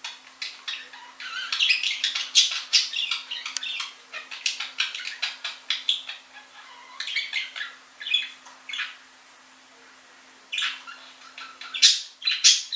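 Budgerigar chattering in a rapid run of short chirps and squawks. It pauses for a second or so about nine seconds in, then gives a few louder calls near the end.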